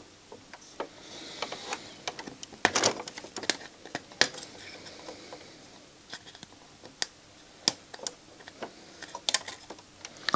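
Hands handling the circuit board and wiring inside an open Technics SL-PG590 CD player: irregular light clicks, taps and rustles of plastic and board parts, the sharpest knocks about three seconds in and near the end.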